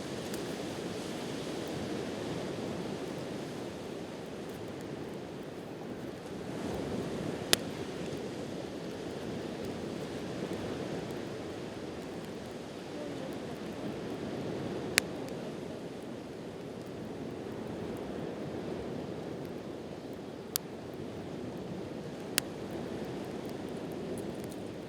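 Wood campfire burning with four sharp pops from the burning wood, over a steady wash of surf.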